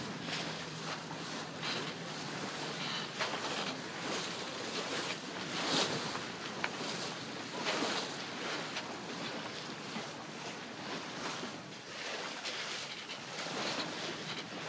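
Water rushing and splashing along the hull of a sailboat under sail, with wind blowing on the microphone. It is an uneven rush that swells in surges, the loudest about six seconds in.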